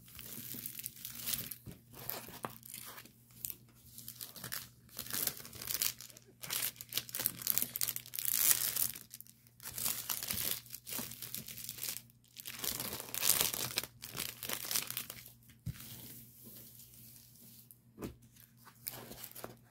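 Thin clear plastic wrap crinkling and rustling in irregular bursts as a diamond painting canvas is handled.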